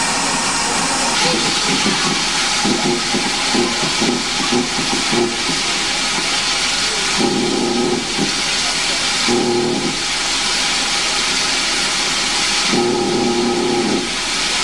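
Steam locomotive standing and venting steam with a steady hiss. A low tonal sound breaks in four times over the hiss: a choppy run about three seconds in, then shorter ones at about seven and a half seconds, nine and a half seconds, and near the end.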